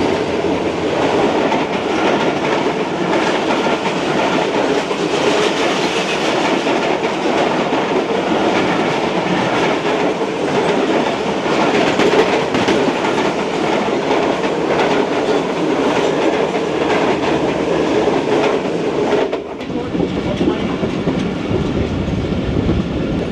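A passenger train passing close alongside on the adjacent track, heard from another moving train: loud, steady rolling noise with the clickety-clack of wheels over rail joints. The noise drops suddenly near the end.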